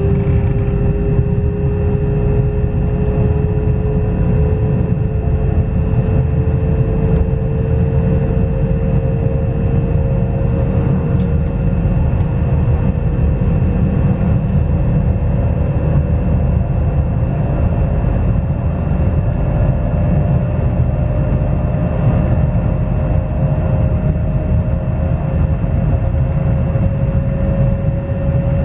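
Pesa Dart ED161 electric multiple unit running, heard inside the passenger car: a steady low rumble of wheels and running gear, with the traction inverter and motor whine slowly rising in pitch as the train gathers speed. A fainter steady high-pitched tone sits above it.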